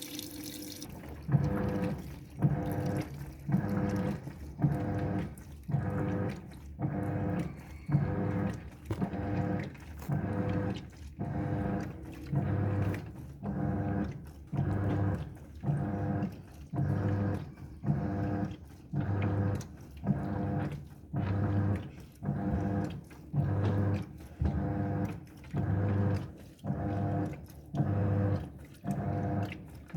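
Washing machine running its wash cycle: the drum motor hums in short bursts about once a second, turning the drum back and forth to agitate the load. A hiss of inflowing water cuts off about a second in.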